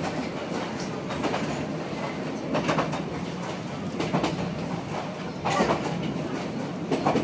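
Yangon Circle Train running along the track: a steady rumble with the wheels clacking over rail joints about every second and a half.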